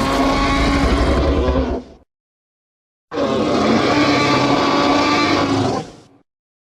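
Two tyrannosaurus roar sound effects: the first is already sounding and stops about two seconds in, then after a second of silence a second roar of about three seconds fades out.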